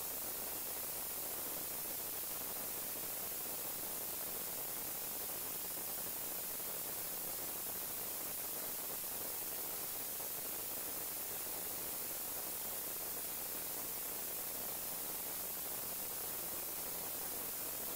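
Steady static hiss, even and unchanging, brightest in the high pitches.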